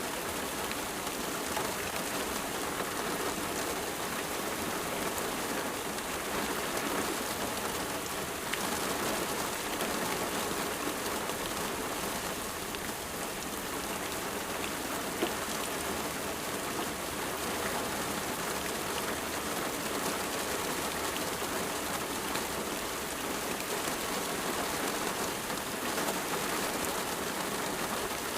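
Steady rain falling, a dense even hiss of drops with fine individual patters, unchanging throughout.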